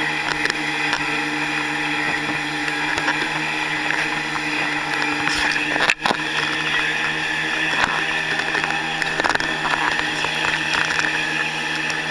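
Motorboat engine running steadily at towing speed, over the rushing hiss of the churning wake. The sound drops out for an instant about halfway through.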